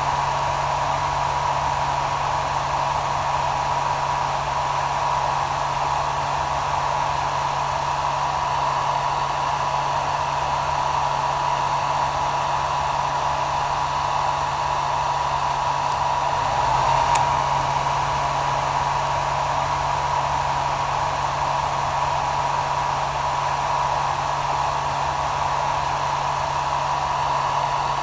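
Hair dryer running steadily: an even rush of air with a high whine and a low motor hum, and a slight swell about two thirds of the way through.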